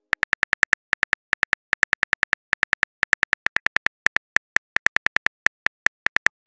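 Phone keyboard click sound effect: a rapid run of identical short taps, about five or six a second with brief pauses, as a text message is typed out letter by letter.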